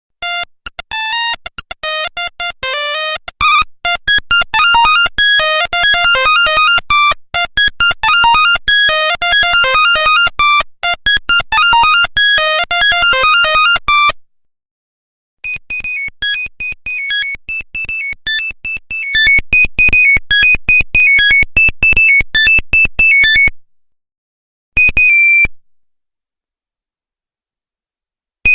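Nokia 1100 monophonic ringtones played one after another: a quick tune of beeping electronic notes for about fourteen seconds, a short pause, a second beeping tune of about eight seconds, then one short beep.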